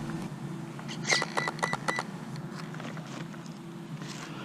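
Electric RC truck running with a steady whine, with a quick run of sharp clicks and knocks about a second in.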